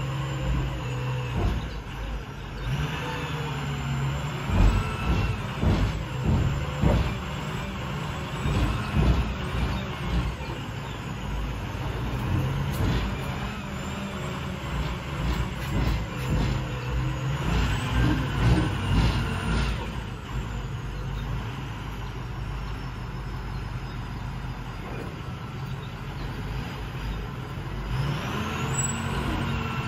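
Diesel engine of a roll-off garbage truck running steadily, with a string of short knocks and clanks from about three seconds in until about twenty seconds in.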